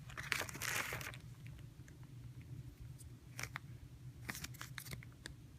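Packaging being handled during an unboxing: a crinkling, rustling burst lasting about a second at the start, then scattered light clicks and taps.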